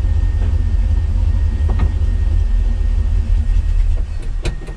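1977 Chevrolet C-10 pickup's engine running with a heavy low rumble, then stumbling and dying about four seconds in as the truck is tried in gear on a freshly swapped torque converter, with a couple of sharp clicks near the end.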